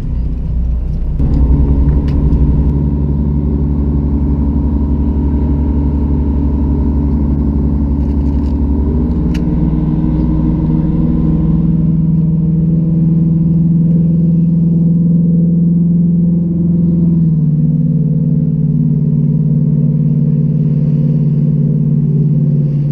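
Fishing boat's engine running steadily as the boat gets under way. It is throttled up about a second in, and its pitch shifts a couple of times after that.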